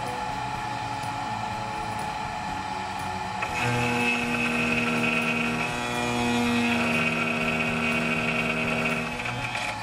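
CNC milling machine's spindle and end mill cutting a metal disc: a steady whine made of several held tones. About three and a half seconds in it grows louder and a higher tone joins in, with a short dip near the end.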